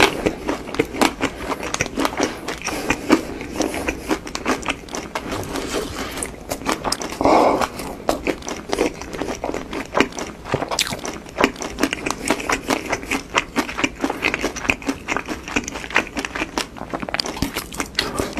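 Close-miked chewing and crunching of crunchy, crumb-coated fried food: a dense, irregular crackle of crisp bites, with one louder, longer burst about seven seconds in.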